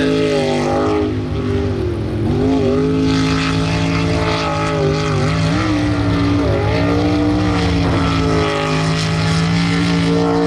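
Jet sprint boat's engine running hard at high revs, the pitch dipping briefly and recovering several times through the course's turns, over the rush of the water jet and spray.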